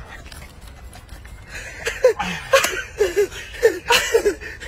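A man laughing in short, repeated bursts that start about two seconds in. Two brief sharp noises come in among the laughs.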